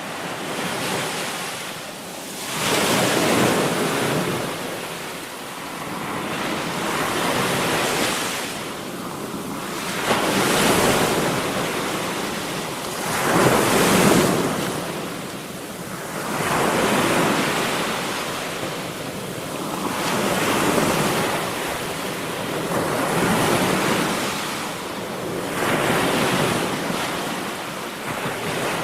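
Ocean surf: waves breaking and washing back in a rhythm, a swell about every three to four seconds.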